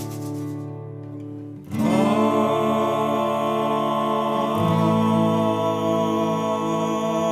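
Music from a comedy song: acoustic guitar, with a long held chord or note that starts about two seconds in and holds to the end.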